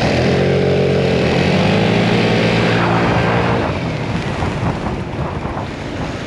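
Single-cylinder maxi scooters, a Vespa GTS 300 hpe and a BMW C 400 GT, accelerating hard at full throttle in an acceleration test. The engine note holds a steady pitch for about three and a half seconds, then fades and gives way to a rushing noise.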